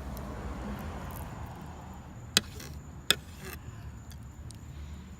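Fillet knife cutting a fish on a board: two sharp clicks about two-thirds of a second apart, each followed by a short scrape, over a steady low rumble.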